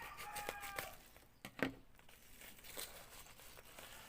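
Packaging crinkling and tearing as a parcel is opened by hand, in short irregular crackles.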